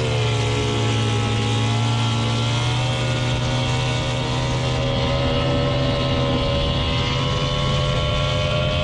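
Mercury ProMax 225 V6 two-stroke outboard running hard under acceleration, its pitch climbing gently in the second half. Water spray from the lower unit rushes underneath.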